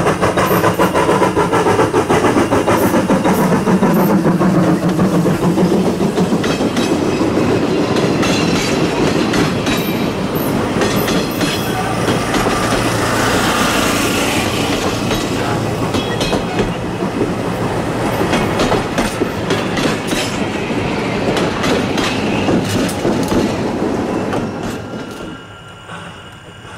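Viscose Company 6, an 0-4-0 tank steam locomotive, passing close by with a rapid steady exhaust chuff. It is followed by its passenger coaches rolling past, wheels clicking over the rail joints. The sound drops away sharply near the end.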